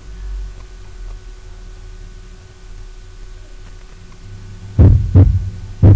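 Normal heart sounds heard through a stethoscope over the tricuspid area. A steady low hum fills most of it, then near the end the beats come in as low-pitched paired thumps, "tum-ta": the first heart sound, then the shorter second heart sound. They come about once a second, one full pair and the start of the next.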